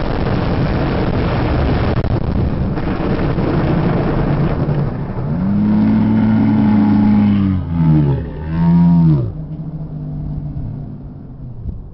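Two Top Fuel dragsters' supercharged, nitromethane-burning V8s running flat out down the strip: a loud, dense roar that dies away after about five seconds. A pitched tone then holds for about two seconds, slides down, rises and falls once more, and stops about nine seconds in.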